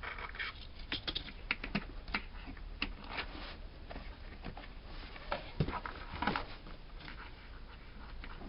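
Irregular small clicks and knocks from a toy bunk bed being handled and fitted back together, its pieces coming apart and being pressed back into place.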